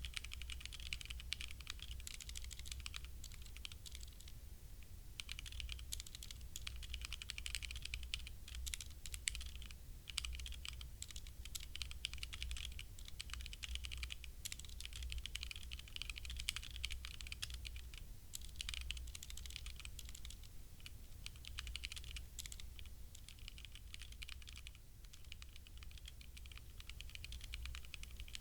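Continuous typing on a HyperX Alloy Origins Core mechanical keyboard with HyperX Red linear switches: a fast, dense run of keystroke clicks with a few brief pauses.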